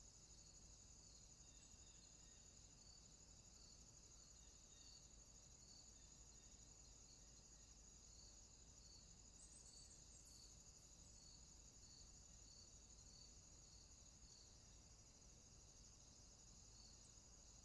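Faint insect chorus in the evening: a continuous high trill with a slower chirp repeating at an even pace, typical of crickets.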